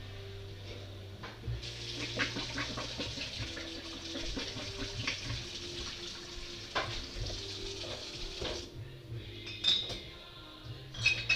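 Tap water running into a kitchen sink while dishes and cutlery clink. The water shuts off between eight and nine seconds in, followed by a few sharp clinks of dishes.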